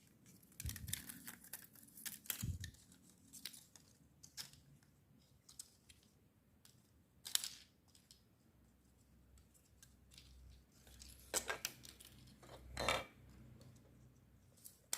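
Light hand-handling noises from small plastic parts: scattered clicks, taps and rustles, bunched in the first couple of seconds, a sharper click about seven seconds in, and another group around eleven to thirteen seconds.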